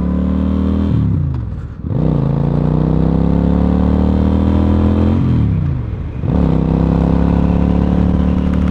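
Suzuki Marauder motorcycle engine pulling under way. Its revs drop and pick back up twice.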